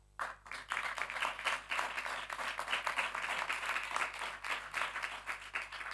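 An audience applauding: dense clapping that starts right after a line of the speech, holds steady, and dies away near the end.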